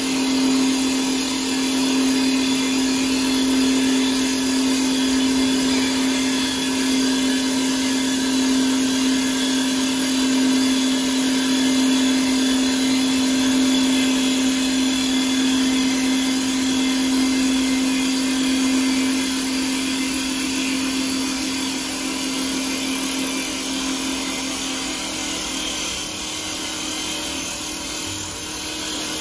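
CNC wood lathe running, spinning and shaping a wooden spindle: a steady motor hum with a high hiss over it. The hum eases slightly near the end.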